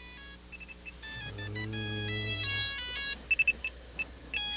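A phone ringtone playing a short electronic melody of separate beeping notes, with a quick run of repeated high beeps in the middle.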